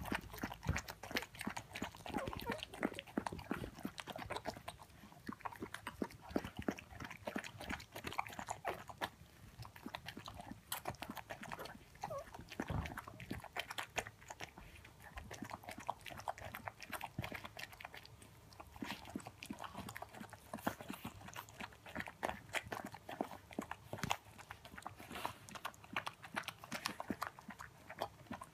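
Siberian husky mother licking and mouthing her newborn puppy: a steady run of wet mouth clicks and smacks.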